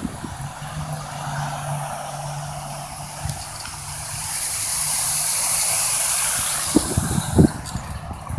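A car passing on the street, its tyre noise swelling to a peak about halfway through and fading away. A low steady hum is heard in the first few seconds, and a few short knocks come near the end.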